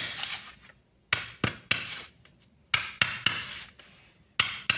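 Hand hammer tapping an oil seal into a Bosch diesel injection pump's timer housing: about eight light strikes in groups of two or three, each with a short ring, driving the seal home.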